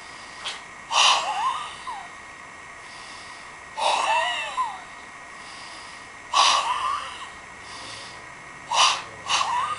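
Sharp, forceful exhalations with short voiced cries from a White Crane kung fu practitioner's breathing during the San Zhan form. Each burst is brief: four come about two and a half seconds apart, and the last is a quick double near the end.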